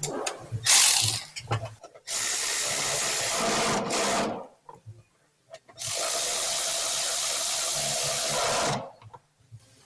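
A handheld power tool run in two steady bursts of about two and three seconds, with a whirring band over a hiss and light clicks and knocks of handling before and between.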